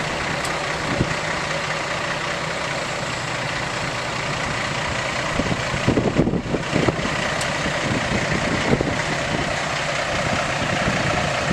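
Diesel engine of a Volvo semi tractor running steadily at low speed as it slowly pulls a heavy trailer carrying a boat, with a few louder thumps about six seconds in.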